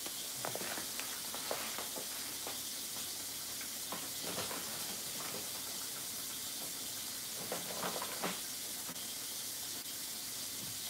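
Steady low hiss with a few soft knocks and rustles from things being handled in the kitchen.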